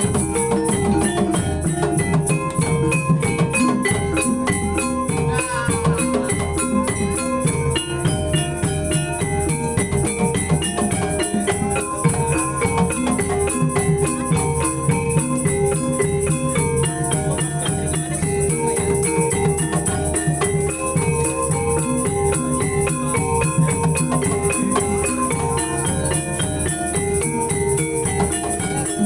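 Banyumasan gamelan ensemble playing continuously as accompaniment for the ebeg horse dance: kendang drums and gongs under a fast, repeating pattern of pitched percussion notes.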